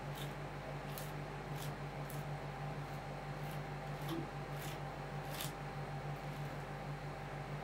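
Metal ice cream spatulas scraping and tapping on a frozen cold plate in short, irregular strokes about once a second, over the steady low hum of the plate's refrigeration unit.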